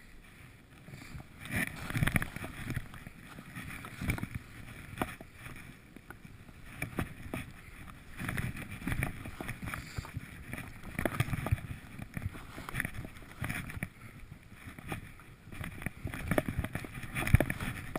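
Rushing, swishing noise of a fast run down through deep powder snow, rising and falling with each turn. Wind buffets the camera's microphone, with scattered thumps and knocks, the loudest near the end.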